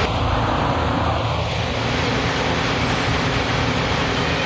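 A steady, low vehicle engine drone under a constant wash of traffic-like noise.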